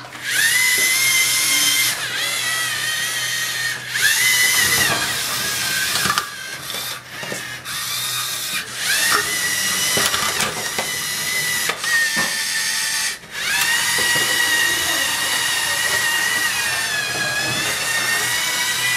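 A LEGO robot's electric motors whining as it drives and works its attachments, rising in pitch each time they spin up. The whine stops and restarts several times, with a few clicks and knocks of plastic parts between runs.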